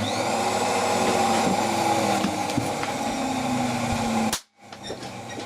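Capacitor bank's charging transformer, fed from a Variac turned up to 280 volts, humming and buzzing under load while it charges the bank, with a few tones sliding slowly downward. About four seconds in the loud hum cuts off sharply and a quieter hum carries on.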